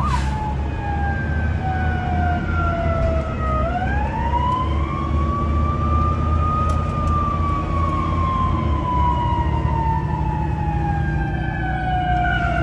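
Fire engine siren heard from inside the cab. A fast yelp breaks off at the start into a slow wail that falls, rises again about four seconds in, then falls slowly. The truck's low rumble runs underneath.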